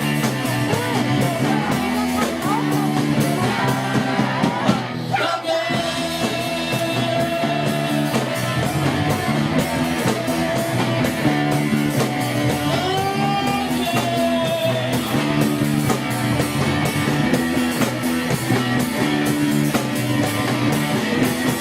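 Live rock band playing a classic rock cover: electric guitar, bass and a steady drum beat, with sung vocals and sliding guitar notes.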